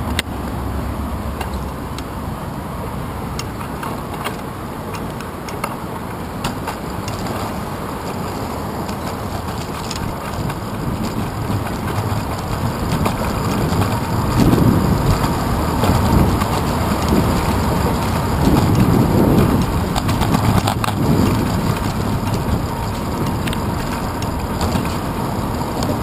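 Wind rushing and buffeting over a handlebar-mounted camera on a moving bicycle, with small rattles and clicks from the bike and the mount. The low buffeting grows heavier for several seconds about halfway through.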